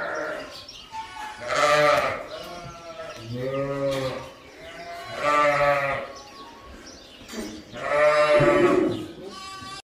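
Sheep bleating in a barn: four long bleats about two seconds apart, one of them noticeably deeper than the others.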